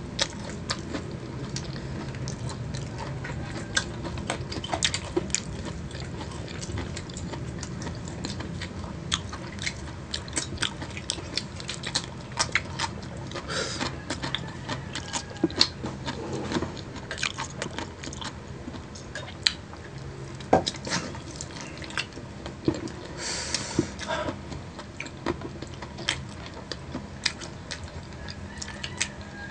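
Close-up eating of crispy fried chicken wings and onion rings: crunching bites and chewing, with frequent sharp crackles throughout.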